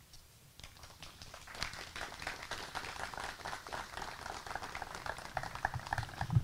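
Light applause from a small audience, starting about half a second in and running as dense, irregular claps.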